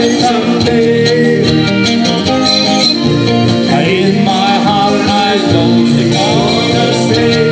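Live band playing: a harmonica carries the wavering melody over electric guitars and a steady drum beat.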